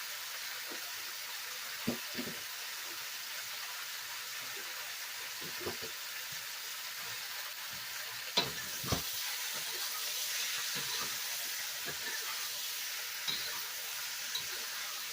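Mushrooms, onion and meat stir-frying in black-bean and oyster sauce, a steady sizzle with the spatula knocking against the pan now and then, loudest twice in quick succession a little past the middle.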